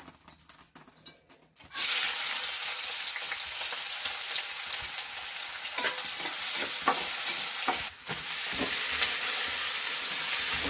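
Chopped onion frying in hot oil in a small black kadhai, a steady sizzle that starts suddenly about two seconds in, with a spatula stirring and clicking against the pan.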